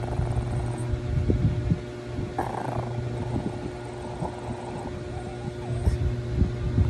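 Small dog growling low and rumbling, in surges about a second in and again near the end, over a steady low hum.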